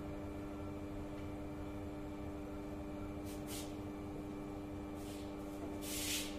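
Board eraser wiping across a whiteboard: several short wiping strokes about halfway through, then a longer, louder one near the end, over a steady low hum.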